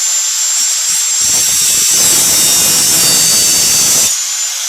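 High-speed grinder running with a steady whine, its wheel biting into the steel of a pair of handcuffs from about a second in until near the end, adding a loud harsh grinding noise, then spinning free again.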